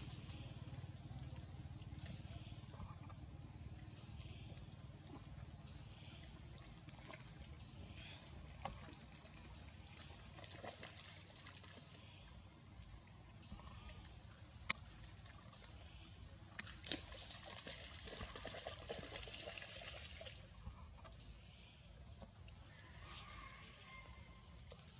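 Steady high-pitched insect drone, with scattered faint clicks and rustles, a cluster of them about two thirds of the way in.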